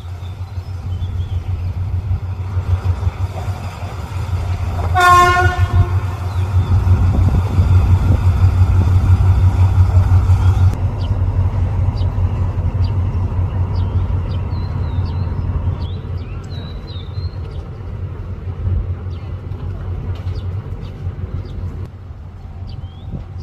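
A locomotive standing at a station, running with a steady low rumble. A horn gives one short toot about five seconds in. A hiss runs alongside and stops about eleven seconds in, and birds chirp faintly in the later part.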